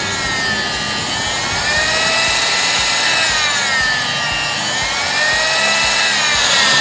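Electric meat slicer running as cooked beef filet is pushed through its round blade, its whine rising and falling in pitch about every two and a half seconds.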